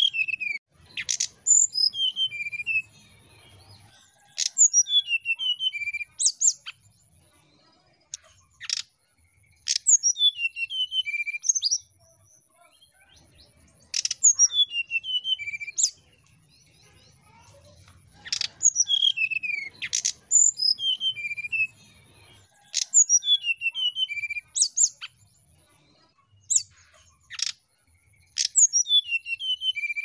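Brown-chested jungle flycatcher singing: phrases of quick, sharp whistled notes that slide down in pitch, each about two seconds long, repeated every four or five seconds.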